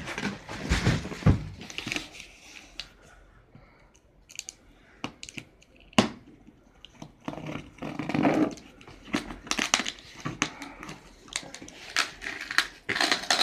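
Unboxing handling noise: a cardboard carton and its bubble-wrap packing rustle and crinkle as they are pulled about. A pen then slits and scrapes at the packing tape on the laptop's inner box, with irregular scrapes, tearing and sharp clicks, one click louder than the rest about six seconds in.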